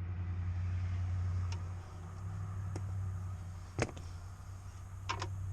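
Steady low hum with a few scattered clicks and one sharper knock about four seconds in, typical of tools and small parts being handled during hands-on work.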